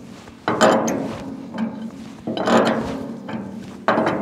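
Pipe wrench knocking and clanking on the top cap of a heating oil tank as the cap is forced loose: three sharp metallic knocks about a second and a half apart, each ringing briefly.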